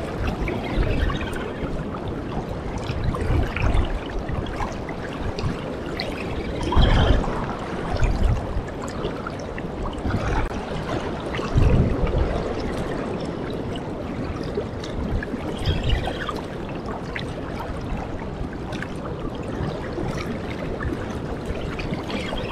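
Choppy river water lapping and splashing against the bank close by, with gusts of wind buffeting the microphone in low rumbles several times.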